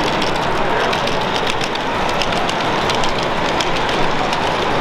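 Steady din of a busy exhibition hall with HO scale model trains running on the layout: an even wash of noise with no single event standing out.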